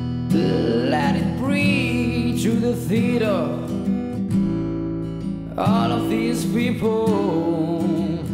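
A Yamaha Compass acoustic guitar is strummed under a man singing long, wavering notes. The singing comes in two phrases, with a short gap a little before halfway.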